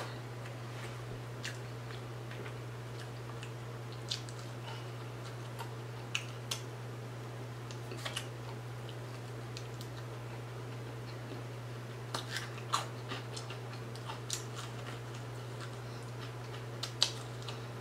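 Scattered crisp crunches and clicks of biting and chewing fried fish, with a cluster of them about two-thirds of the way in and a louder one near the end, over a steady low hum.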